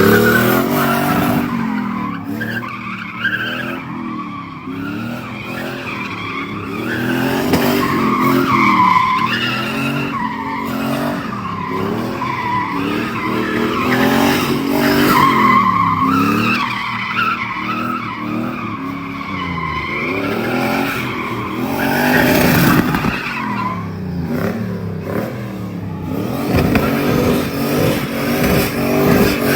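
Car engine revving up and down over and over, with tires squealing.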